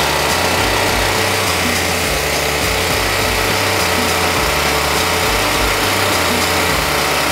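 Pressure washer running steadily, its pump building only about 2,000 psi on a 4,000 psi machine, a shortfall traced to the pump.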